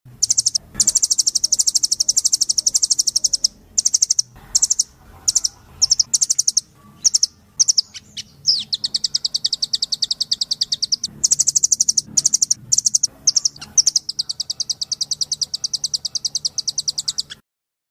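Nuthatch (rambatan doraemon) singing loud, rapid high-pitched trills of fast-repeated notes in bouts of a second to three seconds, with short pauses between. The song breaks off suddenly near the end.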